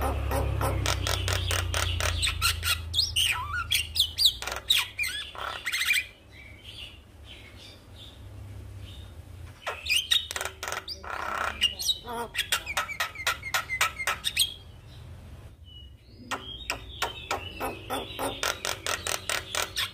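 Javan myna singing in three bouts: fast runs of rattling, clicking chatter mixed with short whistled notes, with pauses of a few seconds between bouts.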